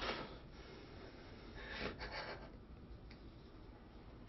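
A woman's quiet, shaky breathing as she begins to cry, with a couple of soft breathy gasps about two seconds in, over faint room tone.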